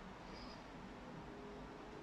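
Quiet workshop room tone: a faint steady hiss with no distinct sound.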